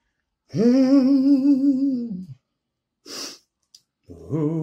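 A man humming long held notes with a wavering vibrato: one note of about two seconds, a short hissing breath, then a second, lower note starting near the end.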